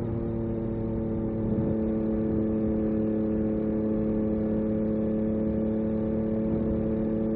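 Yamaha MT-09 SP's three-cylinder engine through an Akrapovic carbon racing exhaust, running at a steady, unchanging pitch under constant throttle while cruising.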